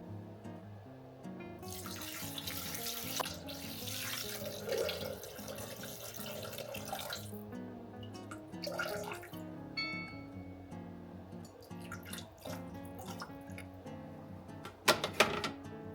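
Kitchen tap running into a sink for about five seconds, then again briefly, over soft background music; a couple of sharp knocks near the end.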